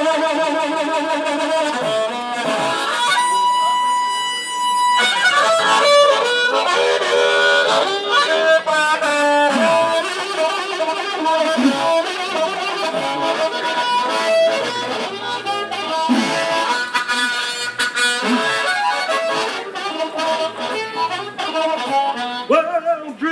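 Harmonica played solo: a melody of changing notes, with one long held note about three seconds in.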